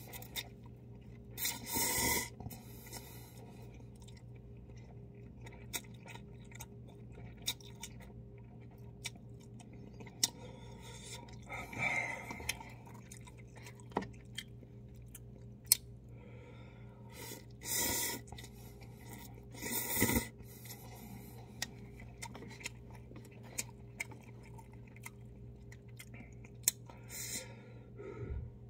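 Close-up eating of cup ramen noodles with chopsticks: chewing with many small clicks and smacks, broken by a handful of short, loud slurps. A steady low hum runs underneath.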